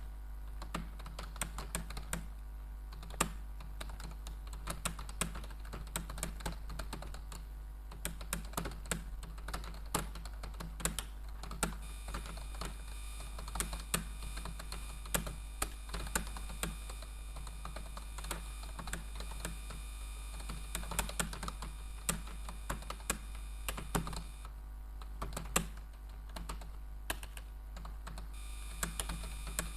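Typing on a computer keyboard: rapid, irregular keystroke clicks over a steady low hum.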